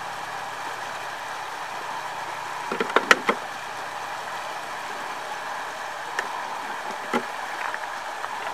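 Plastic jug and fishing net being handled: a quick cluster of sharp knocks about three seconds in, then two single knocks later, over a steady hiss.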